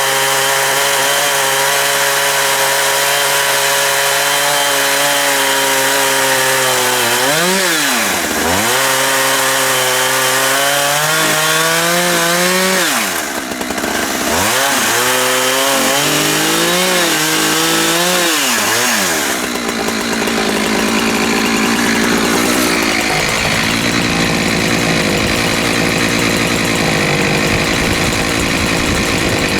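Husqvarna 365 two-stroke chainsaw running at high speed in an Alaskan chainsaw mill, ripping a log lengthwise into lumber. Its engine speed dips and picks up again several times through the middle, and in the last third the sound turns rougher and noisier.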